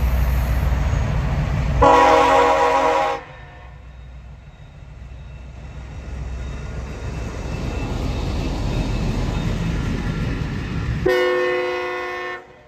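CSX SD23T4 diesel locomotive sounding its multi-tone air horn in two short blasts, one about 2 seconds in and one near the end. Between them the engine and the rolling cars rumble, growing louder as the train passes close by.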